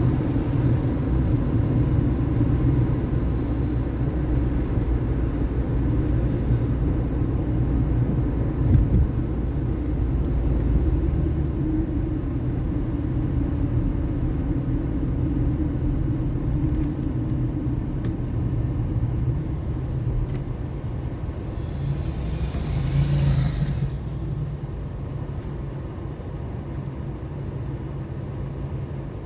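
Car driving through city traffic, its engine and tyres making a steady low rumble. About three-quarters of the way through comes a short, loud hiss, like a passing vehicle or a brake release.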